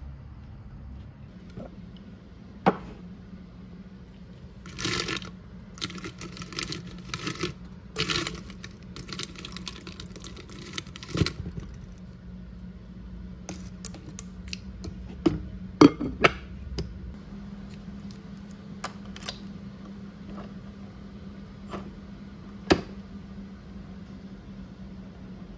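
Metal coffee capsules clattering and clinking as a hand rummages through a glass jar of them, with several sharp clicks and knocks, over a steady low hum.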